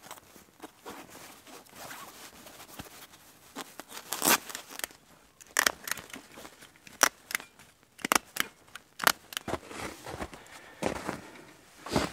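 The umbrella's fabric canopy being cut open by hand: irregular short snips and rips, with the fabric rustling between them.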